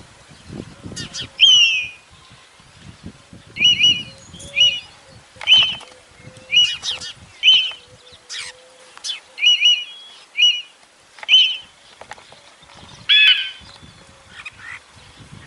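Bird-of-prey calls: a string of about a dozen short, sharp descending cries, roughly one a second, then near the end two harsher, fuller calls.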